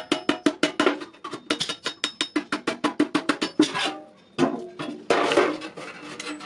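A hammer striking iron in quick blows, about six or seven a second, with a metallic ring. The blows stop briefly past the middle, and a longer harsh scraping noise follows before a few scattered strikes.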